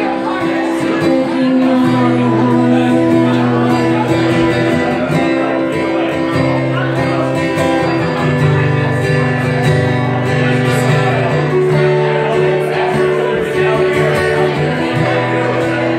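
Acoustic guitar played live, sustained chords with low notes changing every couple of seconds.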